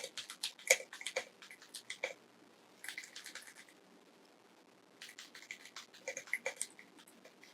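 Typing on a custom-built Akko mechanical keyboard: bursts of quick key clicks with short pauses between them.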